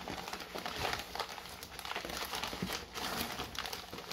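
Parcel packing material crinkling and rustling as hands rummage through it, a continuous run of small irregular crackles.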